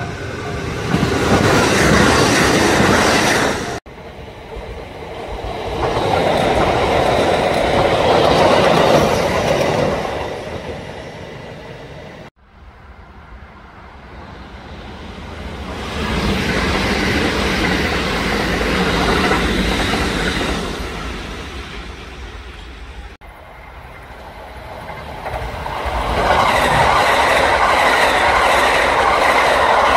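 Kintetsu electric trains passing at speed, wheels clattering over the rail joints. Each pass swells and fades, and the sound cuts off suddenly three times as one pass gives way to the next.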